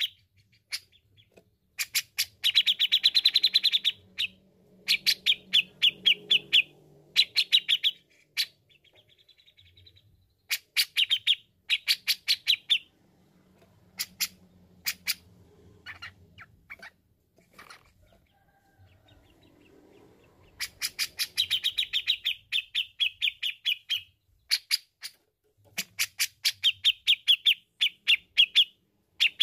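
Cucak jenggot (grey-cheeked bulbul) singing in bouts of fast, sharp repeated notes and rattling trills, with short pauses between bouts and a quieter spell around the middle.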